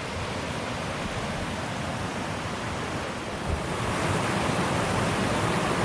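Rocky mountain stream running high, a steady rush of water that grows a little louder about two-thirds of the way through.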